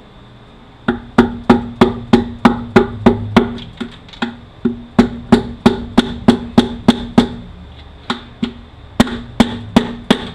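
Hammer blows on a long screwdriver knocking out the front cover of a 5-45RFE automatic transmission: a steady run of sharp, ringing metal strikes, about three a second, with a short pause about two-thirds of the way through. The cover is stuck and not coming out.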